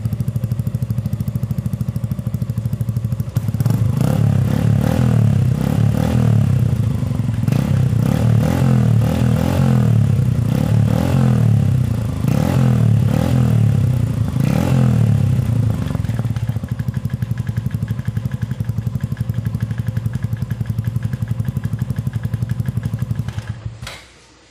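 Suzuki Gixxer 155 Fi single-cylinder engine running through an Akrapovic M1 slip-on exhaust with a DB killer fitted. It idles, then takes a long series of quick throttle blips, each rev rising and dropping back. It settles to a steady idle and is shut off near the end.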